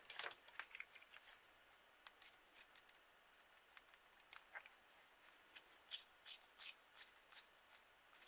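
Faint, irregular small clicks and rustles of small parts being handled, with a quick cluster of sharper clicks at the start.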